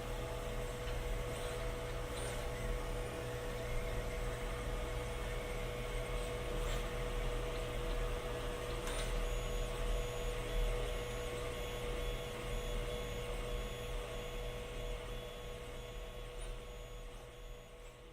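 Monoprice MP i3 Mini 3D printer running: a steady hum with a high whine, fading out near the end.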